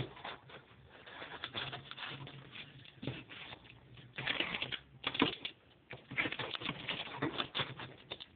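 Packing tape being worked off a taped cardboard shipping box: irregular crackling, ripping and rustling of tape and cardboard, busier in the second half.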